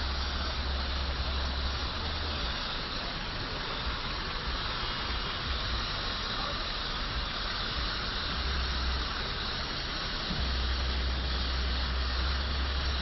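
Steady hissing rush from a smoking vehicle fire. Low wind rumble buffets the microphone on and off: through the first couple of seconds and again from about ten seconds in.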